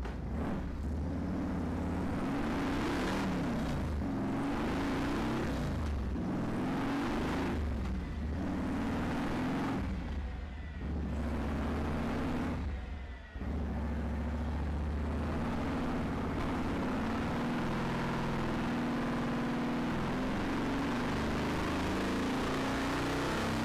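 Touring motorcycle's engine running on a chassis dynamometer during a dyno run. It surges and eases several times in the first half, drops off briefly about ten and again about thirteen seconds in, then runs on steadily.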